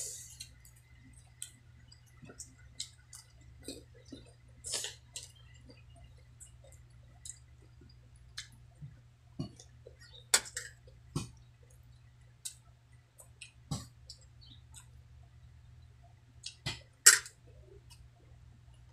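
Close-up chewing and lip smacking of someone eating fried fish and rice by hand: a string of small wet clicks at uneven intervals, with one louder smack near the end. A faint steady low hum runs underneath.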